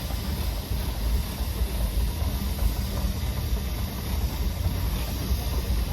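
Steam traction engine running with a steady low rumble and a light hiss.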